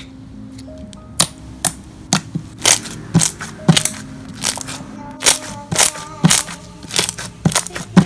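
Slime being squeezed and pressed by hand, giving irregular sharp pops and crackles about one or two a second. Soft background music plays underneath.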